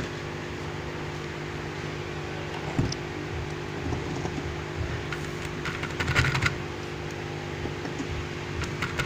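A steady low electrical hum, with light clicks and rattles over it: one about three seconds in and a short cluster a little past the middle.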